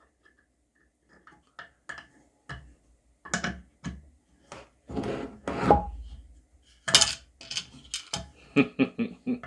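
Irregular clicks and scraping of a Victorinox Venture Pro pocket knife and its spade drill bit worked against a block of soft pine, with a longer scrape about five seconds in.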